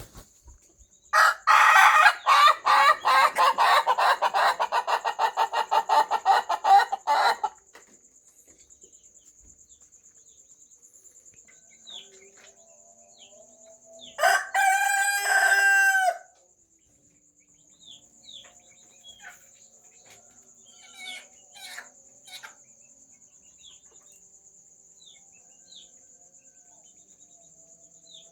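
A rooster crowing twice. The first crow is a long, loud run of rapid, staccato notes lasting about six seconds. The second, about halfway through, is a shorter call of two seconds with a clear pitch. Underneath runs a steady high insect buzz, with scattered small bird chirps.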